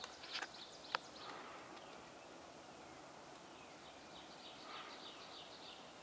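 Male pileated woodpecker chiselling into a dead tree trunk: a few sharp knocks of its bill on the wood within the first second. Later a bird gives a rapid series of high, repeated notes lasting under two seconds.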